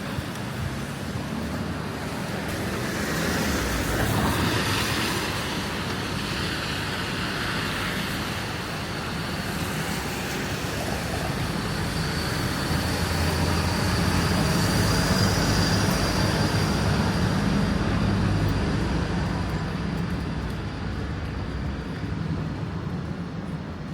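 City street traffic: vehicles passing on a rain-wet road with a tyre hiss. The sound swells as one passes about four seconds in, and again through the middle, where a low engine hum joins in.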